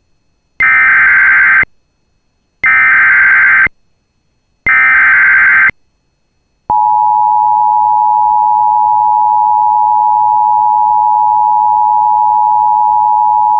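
Emergency Alert System header: three bursts of digital SAME data tones, each about a second long, with a second of silence between them. About six and a half seconds in, the steady two-tone EAS attention signal starts and holds, announcing a severe thunderstorm warning.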